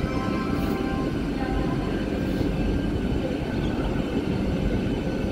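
Vande Bharat Express electric multiple-unit train, a steady rumble and hum with no sudden knocks or horn.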